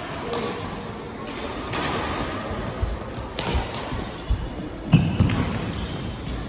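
A badminton rally: sharp strikes of rackets on a shuttlecock and heavy footsteps thudding on the court, the thuds loudest about five seconds in.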